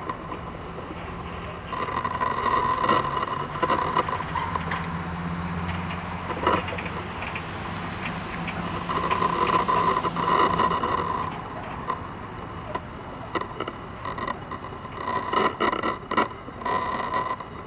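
Road traffic: vehicle engines running, growing louder for a few seconds at a time about three times.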